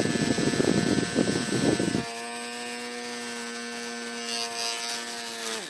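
Handheld fan driven by a swapped-in Nikko RC car DC motor on a 9-volt battery, running flat out. For about two seconds its airflow rushes on the microphone, then a steady motor whine with many overtones is heard. Near the end the whine drops in pitch and cuts out as the fan is switched off.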